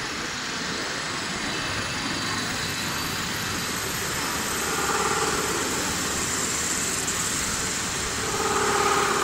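CNC metal spinning machine running with a steady mechanical hum. A higher pitched tone rises over it twice, about halfway through and near the end.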